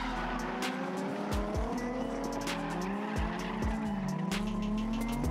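Nissan 350Z drift cars sliding in tandem: engines revving up and down at high rpm while the tyres squeal. Several sharp cracks cut through along the way.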